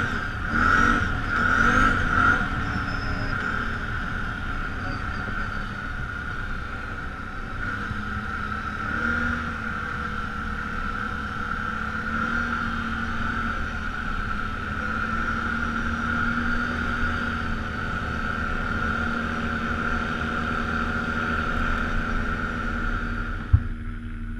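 ATV engine running steadily under way, with a steady high whine over the engine note. A sharp click comes near the end, and the sound drops off just after it.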